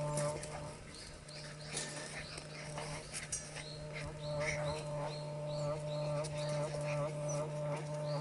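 Border collie puppies squeaking and whimpering in many short, high, falling chirps, with a few clicks, over a steady low hum.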